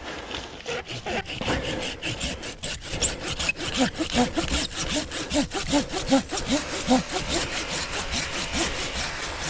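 Hand saw cutting through a thick woody shrub stem with rapid, steady back-and-forth strokes.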